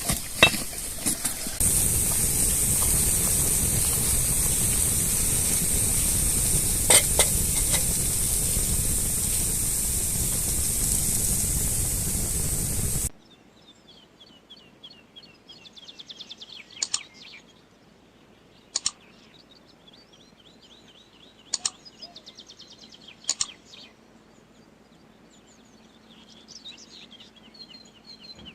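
Food sizzling steadily in a pan for about thirteen seconds, then cutting off suddenly. Quiet birdsong follows: small birds chirping and trilling, with four sharp clicks spread through it.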